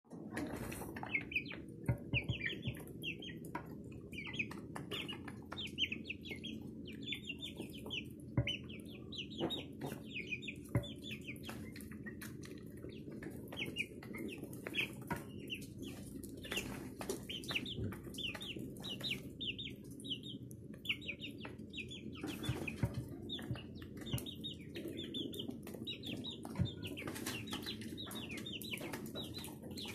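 Young chickens peeping in quick runs of short, high, falling notes, with scattered sharp pecking taps on the concrete floor.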